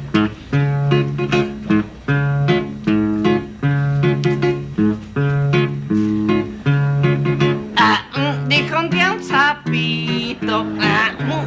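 Music: a plucked acoustic guitar playing a rhythmic accompaniment, with a voice singing in from about eight seconds in.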